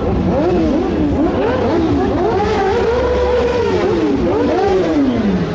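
Motorcycle engines revving, several at once, their pitch climbing and dropping over and over.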